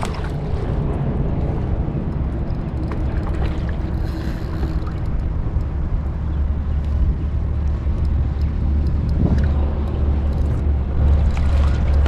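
Wind rumbling on the microphone, a steady low buffeting with a few faint clicks over it.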